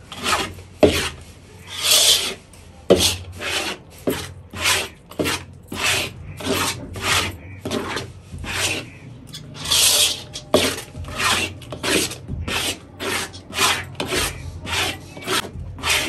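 Rhythmic scraping strokes, about two a second, as a thick flour-and-milk mixture is worked in a vessel to break up lumps.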